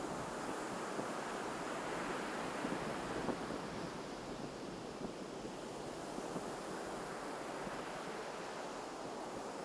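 Ocean surf washing onto a beach: a steady, continuous wash of breaking waves, a little louder in the first few seconds.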